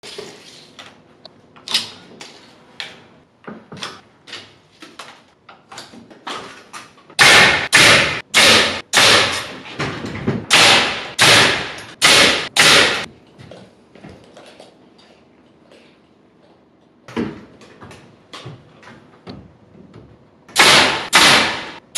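Repeated sharp knocks and bangs: faint ticks and taps at first, then a run of a dozen or so loud strikes at about two a second, a stretch of quieter taps, and a few more loud strikes near the end.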